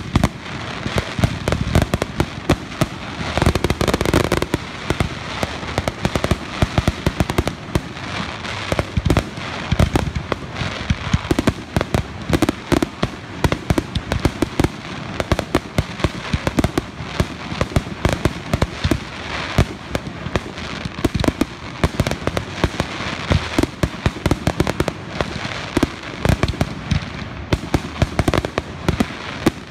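Fireworks going off in a dense barrage of aerial bursts: many sharp bangs a second, with no let-up.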